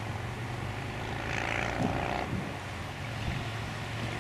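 Twin turbofan engines of an Embraer E-Jet airliner at takeoff power during the takeoff roll, heard from a distance as a steady low rumble, with a higher whine coming up briefly about a second and a half in.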